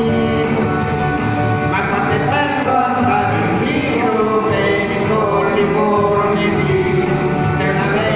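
A man singing into a microphone over a recorded backing track, both coming through a PA speaker.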